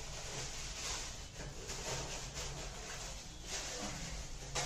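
Thin plastic bag rustling and crinkling as it is handled and pulled off a computer monitor, along with polystyrene foam packing being lifted away. There are a few louder swishes near the end.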